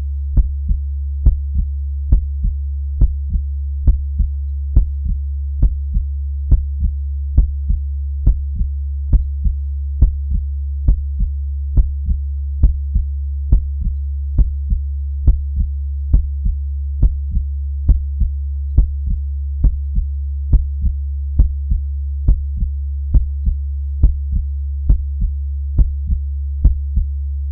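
Slow, steady heartbeat, each beat a strong and a weaker thump in close succession, over a constant low hum.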